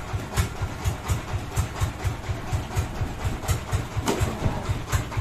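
Sawmill engine idling, a steady, even beat of low thumps about three a second.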